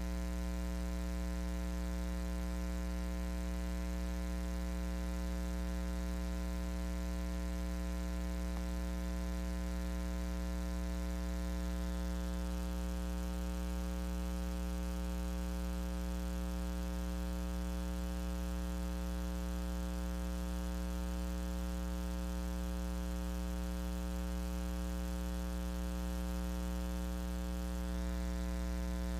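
Steady electrical mains hum with a buzzing stack of overtones, unchanging throughout, picked up in the broadcast audio feed.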